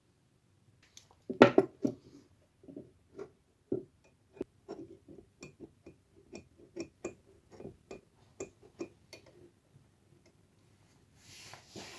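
A run of light clicks and knocks from hard objects, about two or three a second, with a louder clatter about a second and a half in.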